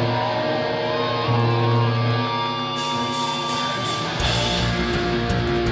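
Live hardcore punk band: electric guitars hold ringing notes under a wavering high tone, cymbals come in, and about four seconds in the full band with drums and bass starts up, opening the next song.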